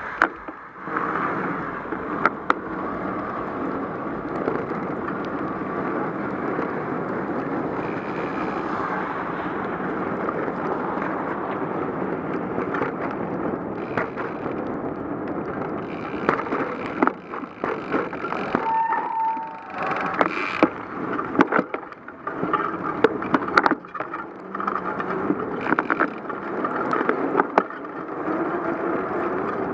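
Bicycle rolling on wet pavement in the rain: a steady hiss of tyres and road noise, with scattered clicks and knocks in the second half.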